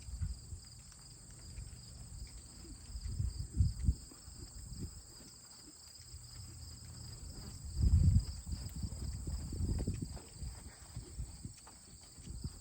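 Horse's hoofbeats as it is ridden, louder about three seconds in and again around eight to ten seconds in, with insects chirping steadily and high in the background.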